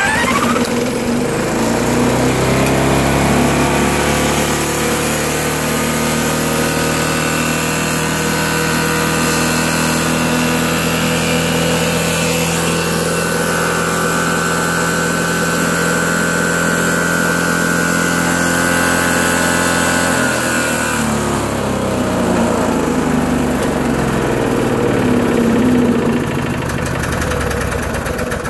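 Petrol lawnmower engine spun up by an electric drill on the flywheel nut, catching and running fast and steady with its throttle jammed open. About two-thirds of the way through, the engine speed dips and climbs back.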